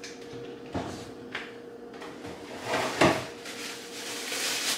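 Kitchen tidying: things being handled and put away on a counter, with a knock under a second in and a louder sliding sound ending in a knock about three seconds in, over a faint steady hum.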